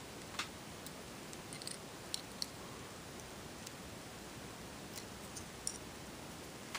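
A few faint, sharp clicks and ticks, spaced irregularly, from handling a small padlock and metal lock-picking tools.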